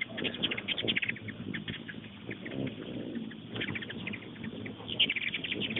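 Hummingbirds squabbling around a nectar feeder, giving bursts of rapid high chittering chips. The chips are densest near the start, again about two-thirds through, and near the end.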